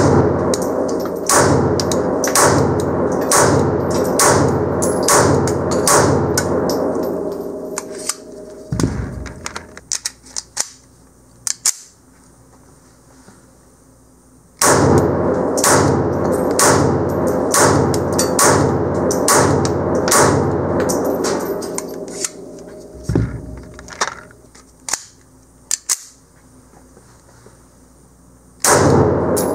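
Rapid strings of gunshots fired at a jack-o'-lantern, about one and a half shots a second, in two volleys of roughly eight seconds each that trail off into scattered cracks, with a quiet gap between them and a third volley starting near the end.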